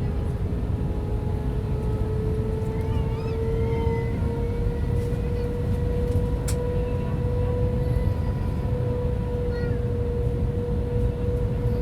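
Airbus A320 cabin noise on approach: a steady rumble with the whine of the IAE V2527 engines, whose tone rises slightly in pitch a few seconds in as thrust is added, then holds. A brief click about six and a half seconds in.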